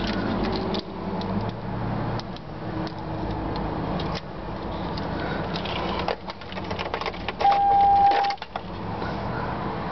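Clicks and light knocks of switches and controls being worked inside a 2004 Toyota Highlander's cabin, then a steady electronic beep lasting about a second near the end.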